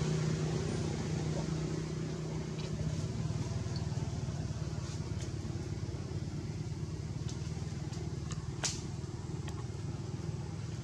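Steady low rumble like a motor running, with a hum that fades out about three seconds in. A few faint ticks and one sharp click come about three-quarters of the way through.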